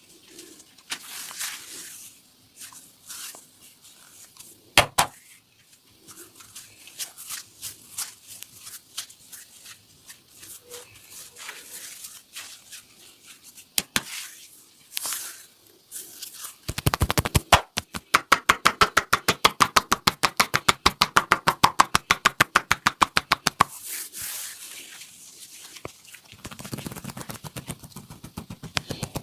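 Hand massage on a person's upper body: soft rubbing and patting with scattered clicks and one sharp click about five seconds in, then a long run of fast, even percussive slaps or chops of the hands, several a second for about seven seconds, before the rubbing resumes.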